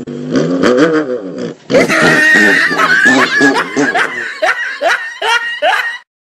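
A brief rising-and-falling pitched cry, then loud, hard laughter in repeated falling bursts, which stops abruptly near the end.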